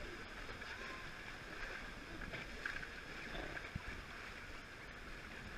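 Steady rushing of river water around an inflatable whitewater raft, with one light knock about four seconds in.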